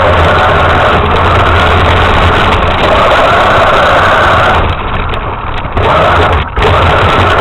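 RC truck's motor running hard, easing off for about a second about five seconds in and dropping out again briefly near six and a half seconds.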